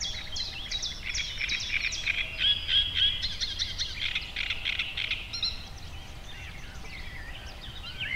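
Birds singing and calling, a dense chorus of quick high chirps that thins out after about five seconds, over a faint low rumble.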